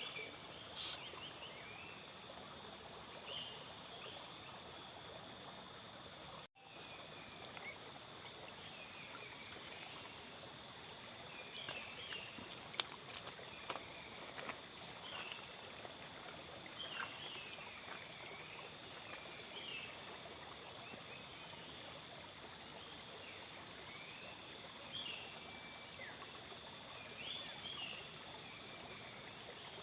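Steady high-pitched insect chorus, crickets or similar, with a second insect trilling in rapid pulses beneath it and scattered short bird chirps. The whole sound cuts out for an instant about six and a half seconds in.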